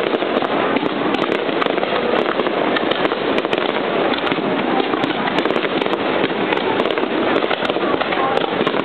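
Fireworks bursting in a dense, continuous barrage of crackling reports, with many small sharp pops layered over one another and no single big boom standing out.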